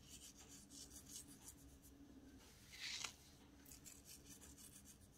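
Near silence, with a few faint soft ticks and one brief rasp about three seconds in: salt rubbed between the fingers and sprinkled onto diced salad vegetables in a glass bowl.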